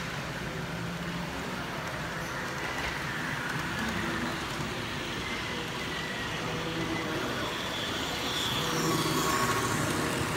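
H0 model trains running on a layout: the blue City Night Line coaches rolling over the track with a steady running noise and faint motor whine. It gets somewhat louder near the end as a second train passes close by.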